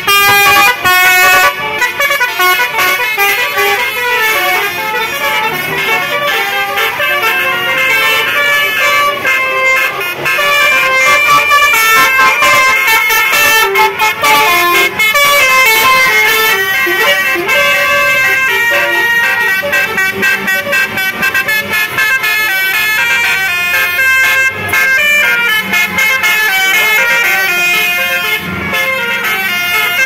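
Loud telolet horns on Indonesian tour buses: multi-tone air horns playing quick stepped melodies without a break, with several notes sounding at once.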